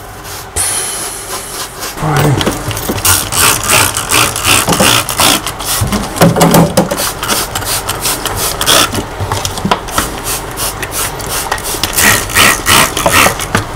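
A hand trigger spray bottle squirting again and again into a gas boiler's open heat exchanger: a quick run of short hissing sprays, several a second. Near the start a high whine fades out as a vacuum cleaner winds down.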